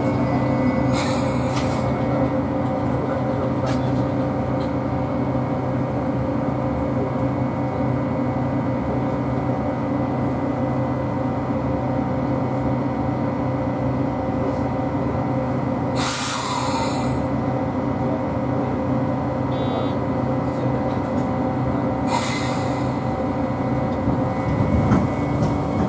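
Hakone Tozan Railway electric train, heard from inside the cab, giving a steady hum with several constant tones. Three short hissing bursts come about a second in, around sixteen seconds in and around twenty-two seconds in.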